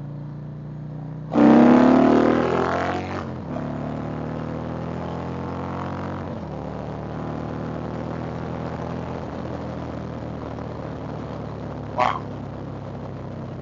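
Big V-twin motorcycle engine pulled hard in second gear: the throttle snaps open about a second in and the revs climb for about two seconds, then it is rolled back and the engine settles to a steady run.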